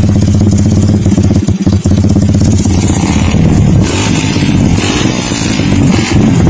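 Motorcycle engine running loud and steady, with a rapid run of exhaust pulses; a little more hiss comes in about halfway through.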